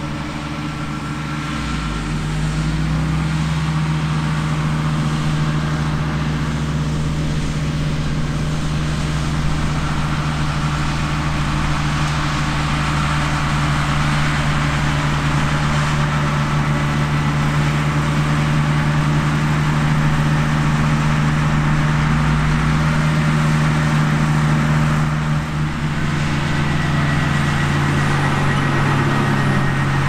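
Case IH Quadtrac tracked tractor's diesel engine running steadily under heavy load as it pulls a wide tillage implement through stubble. The sound grows louder about two seconds in as the tractor approaches, and dips briefly near the end.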